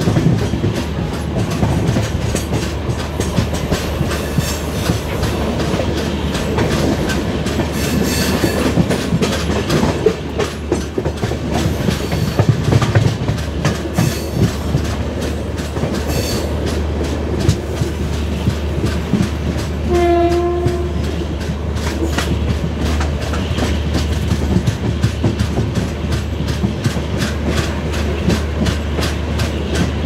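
LHB passenger coaches running at speed, a steady rumble with the clickety-clack of wheels over rail joints. About two-thirds of the way through, a locomotive horn sounds once, briefly, for about a second.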